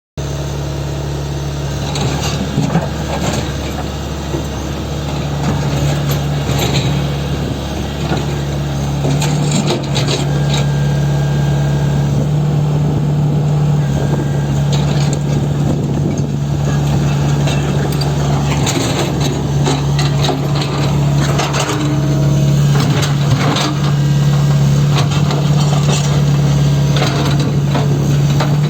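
Tata Hitachi Zaxis 120 excavator's diesel engine running steadily, with scattered clanks and knocks over it.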